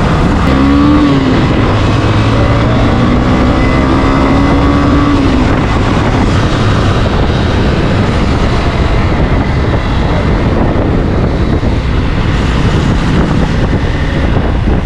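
Motorcycle riding at speed: a steady rush of wind and road noise over the engine, whose note rises slightly about a second in, holds, then drops away after about five seconds.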